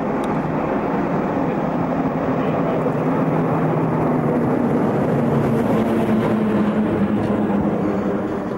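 Diesel shunting locomotive running past on the adjacent track as it runs around its train, its engine note rising to a peak as it passes close about halfway through, then easing off.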